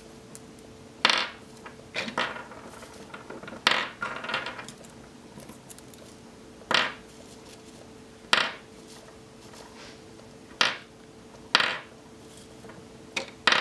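00 buckshot pellets being set down one at a time onto a hard surface: about nine sharp clicks, spaced a second or two apart.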